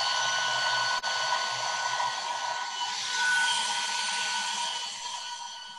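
Hand-held hair dryer blowing steadily on a sheet of wet watercolor paper to dry the paint. It fades away near the end.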